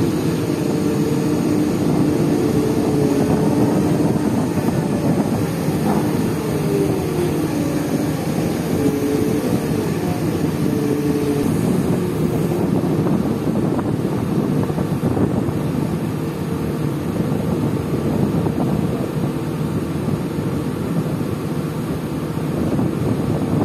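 Heavy diesel machinery running steadily, with a whining tone that wavers in pitch during the first several seconds.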